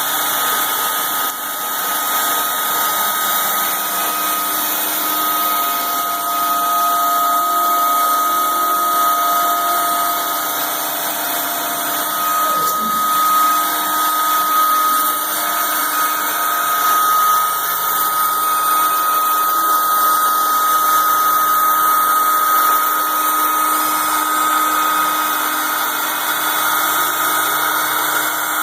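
CNC router spindle running with a steady high whine, surfacing the machine's bed. A second, lower tone slides down and drops away about twelve seconds in.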